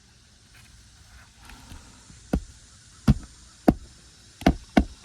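Hand hammer nailing down an asphalt roof shingle: a run of about six sharp blows starting about two seconds in, coming closer together near the end.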